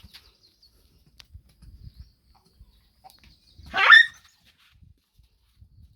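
An animal gives one short, loud squeal that rises sharply in pitch, about three and a half seconds in, over faint low thumps and rustling.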